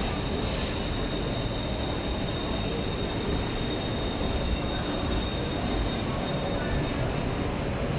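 BTS Skytrain electric train pulling into an elevated station and slowing to a stop, a steady rolling rumble with a thin high tone held above it. A brief hiss about half a second in.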